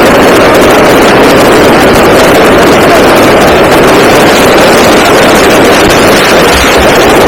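Fireworks going off in a dense continuous barrage, the rapid bursts and crackles merging into one unbroken roar that stays at full loudness throughout.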